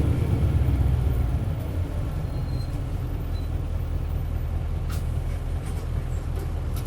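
Isuzu 8PE1-S V8 diesel engine of an Isuzu Cubic bus, heard from inside the bus as it drives. The engine is loud for about a second and a half, then eases a little and runs on steadily. Two sharp clicks come about five seconds in and near the end.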